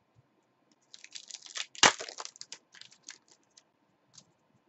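Sealed trading card pack wrapper being torn open and crinkled by hand: a run of crackling rustles with one loud sharp rip about two seconds in.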